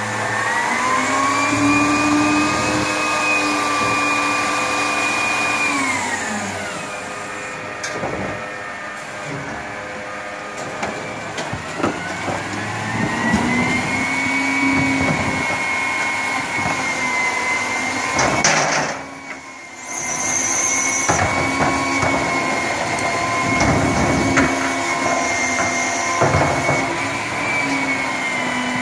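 Front-loader garbage truck's engine revving up with a high hydraulic pump whine, held steady, then dropping back about six seconds in. It revs up again about twelve seconds in and holds, while plastic carts knock and clatter against the front-mounted container.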